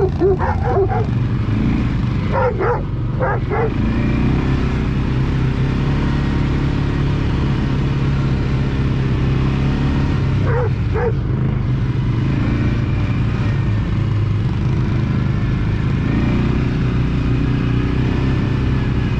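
ATV engine running steadily under way. A few short, high yelping sounds break in about two to three seconds in and again about eleven seconds in.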